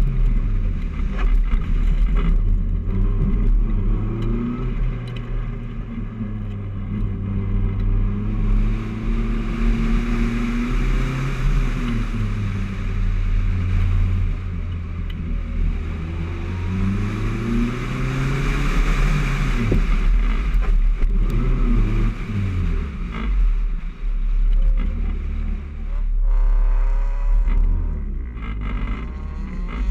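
Honda Civic's four-cylinder engine running hard through an autocross course, its pitch repeatedly rising under acceleration and falling off between cones.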